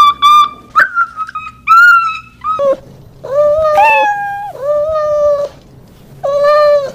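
Cat meowing: three long, drawn-out meows of about a second each, the first stepping up in pitch partway through. Before them come a few short high-pitched squeaks.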